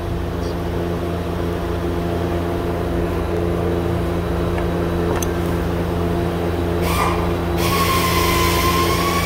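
A steady low hum throughout. About seven seconds in there is a short knock, then a cordless electric ratchet whirs at high speed for about two seconds, spinning out a 10 mm bolt.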